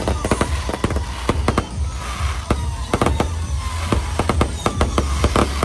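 Fireworks going off in quick succession: many sharp bangs and crackles, one after another, over music with a steady bass.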